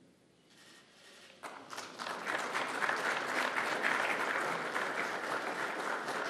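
Audience applause in a hall, starting about a second and a half in and swelling into steady clapping.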